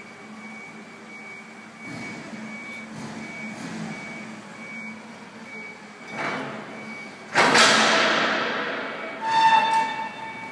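Vehicle backup alarm beeping steadily, about once a second, over machinery noise. About seven seconds in comes a sudden loud rushing burst that fades over a couple of seconds, and near the end a short, loud, high ringing squeal.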